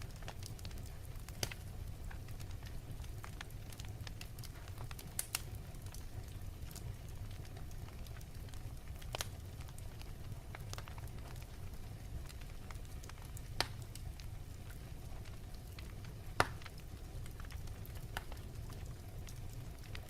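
Fireplace fire burning with a steady low rumble and irregular sharp crackles and pops, the loudest pops about 5, 13 and 16 seconds in.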